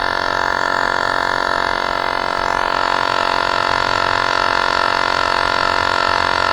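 Battery-powered electric tire inflator running steadily as it pumps up a bicycle tire: a continuous drone with many overtones, unchanged in pitch and level.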